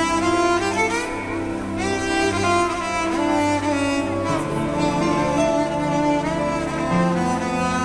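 Music for a fountain show played over outdoor loudspeakers: long held notes over a deep bass line, the bass note changing about four seconds in.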